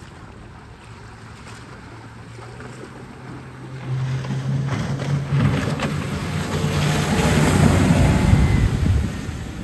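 RIB's outboard motor running hard, with a steady low engine note that grows louder from about four seconds in as the boat turns and passes close, mixed with the rush of spray from the hull, then dropping off sharply near the end.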